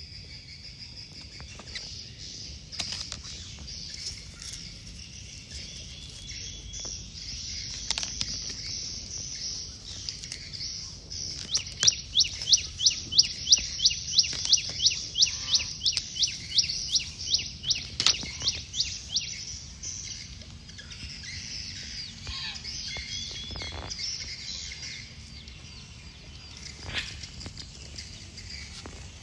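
Outdoor chorus of insects shrilling steadily at a high pitch, with birds chirping. About twelve seconds in, a loud run of sharp chirps repeats about four times a second for some seven seconds, then the steady chorus resumes.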